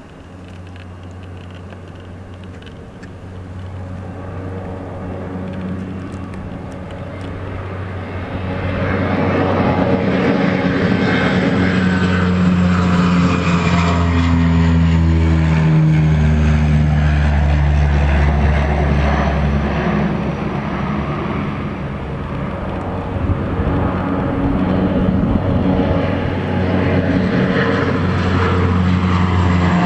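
Twin propeller engines of Canadair amphibious water bombers running at full power as the planes skim the lake scooping water and climb away: a low drone that grows loud over the first several seconds, drops in pitch about halfway through as a plane passes, and swells again near the end as a bomber flies low overhead.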